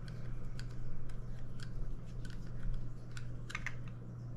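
Light, irregular clicks and taps of hard plastic as a rebreather's dive/surface valve is handled and its on-off handle's Allen bolt is worked loose.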